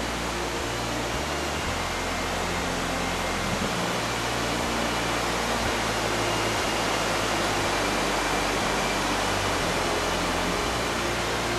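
Steady rush of river water spilling over a mill dam and shoals.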